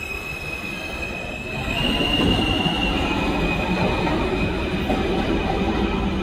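R160 subway train accelerating out of the station: a high propulsion whine holds steady notes that jump up in pitch about two seconds in and drop back a step a second later. Under it, the rumble of wheels on the rails grows louder about two seconds in.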